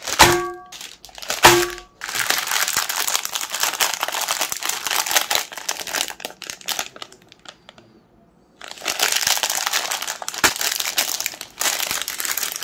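Plastic-foil wrappers of Magnum ice-cream bars crinkling and crackling as they are handled and squeezed, pausing for about a second midway, with one sharp click later on. Two short ringing tones about a second apart open the sound and are the loudest events.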